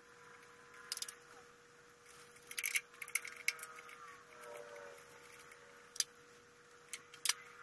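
Ignition switch and its wires with crimp connectors being handled and fitted back into a Ferguson TO-20 tractor's dash: scattered light metallic clicks and rattles, the sharpest a little after a second in and near the end. A faint steady hum sits underneath.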